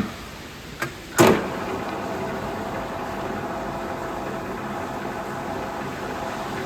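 Washino LR-55A engine lathe: a couple of clicks and a heavier clunk about a second in, then the machine runs steadily with a constant hum.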